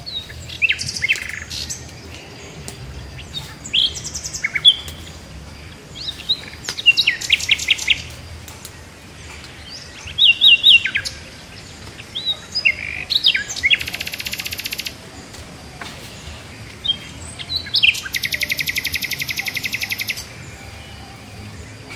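Small birds chirping: short, sharp high calls broken by several rapid trills, the longest lasting about two seconds near the end.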